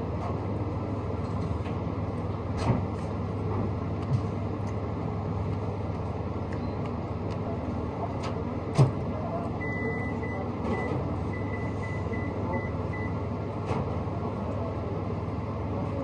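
Steady low rumbling room noise, with a few sharp clicks of a metal fork against a plate, the loudest about nine seconds in.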